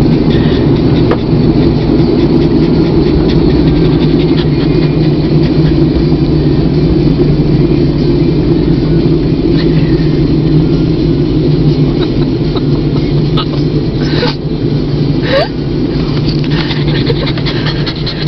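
Steady low drone of engine and road noise inside a moving car's cabin, with a couple of brief clicks about 14 and 15 seconds in.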